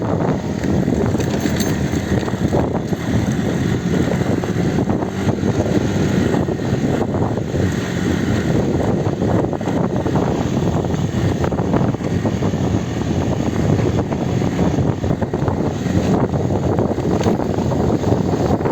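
A child's ATV running over a rough track, with a steady, loud rumble and wind buffeting the microphone.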